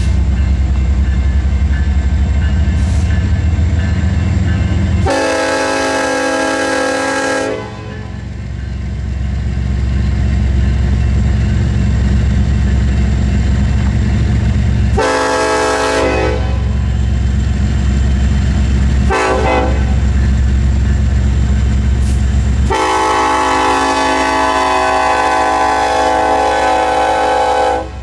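Locomotive air horn sounding the grade-crossing signal, long, long, short, long, with the last blast held longest, over the steady low rumble of a train on the rails.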